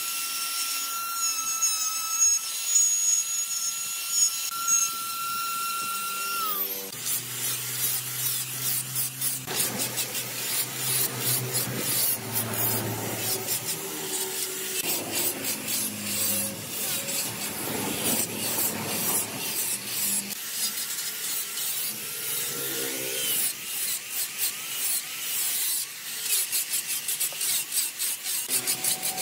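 An electric die grinder with a carving bit whines steadily as it cuts into the wood, then winds down about seven seconds in. After that an angle grinder with a sanding pad runs against the wood surface, making a rough, scratchy rubbing that swells and eases as it is pressed and moved.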